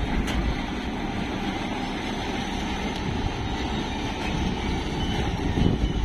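Kartar 4000 combine harvester's diesel engine running steadily while the machine stands still.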